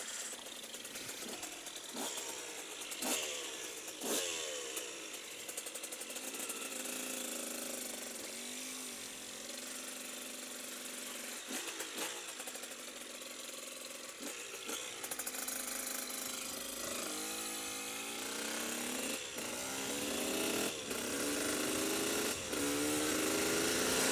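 KTM EXC 125's two-stroke single-cylinder engine as the bike pulls away and accelerates along the road, its pitch climbing and dropping back again and again as it is revved through the gears, getting louder toward the end. A few sharp knocks come in the first few seconds.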